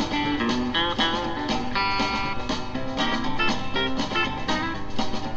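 Acoustic guitar playing an instrumental break in a song, strummed chords mixed with picked notes, without singing.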